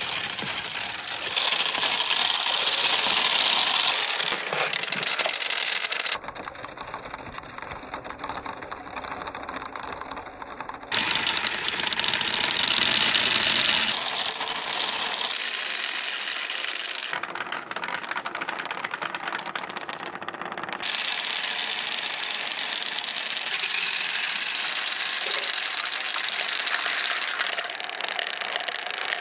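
Many small coloured balls rolling and clattering against each other inside clear plastic pipes and an acrylic chute: a dense, rapid rattle of clicks. It drops quieter for a few seconds from about six seconds in.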